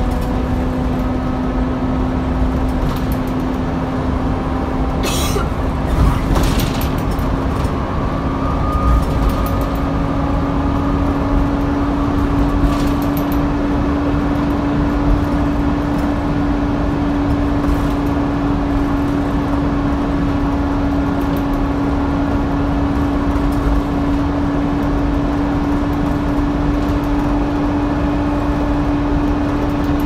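On board a Volvo B7TL East Lancs Vyking double-decker bus: its engine and running gear under a steady, vacuum-cleaner-like "hoover" whine that rises slowly in pitch. A few short rattles come about five to seven seconds in.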